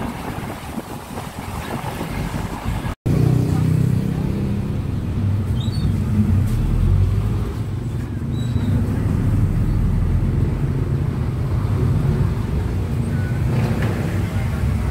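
Engine and road noise of a moving passenger vehicle, heard from inside through open windows. At first the road and wind noise is lighter; after a brief cut about three seconds in, a louder, steady low engine rumble.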